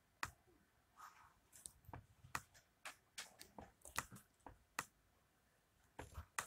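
Faint, sharp clicks or taps in a regular run of about two or three a second, stopping for about a second near the end before a few more.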